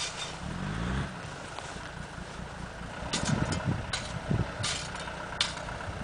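Land Rover Defender engine running while stuck in deep snow, rising briefly about a second in and again a few seconds later. Four or five short sharp scrapes of a shovel digging snow beside it.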